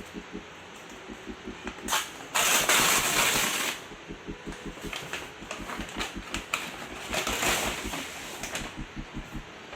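Shoe box and packaging being handled and opened: rustling and scraping bursts, the loudest from about two to four seconds in and again near the end, with small knocks and ticks in between.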